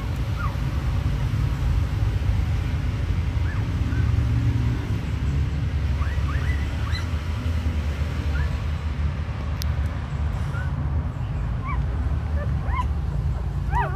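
Newborn puppies nursing, giving scattered faint high squeaks and whimpers that come more often near the end, over a steady low rumble.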